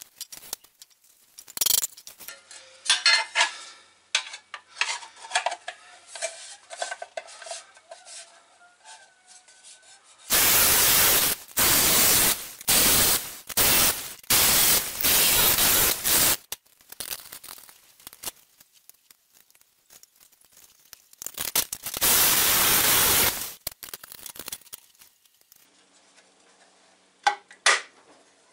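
Sheet-metal pieces clinking and ringing as they are handled. From about ten seconds in come a run of loud, harsh rushing bursts of about a second each, with another one later.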